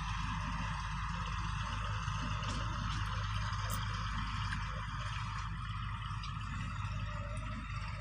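Shallow river water sloshing and splashing around men wading as they haul a seine net, over a steady low rumble.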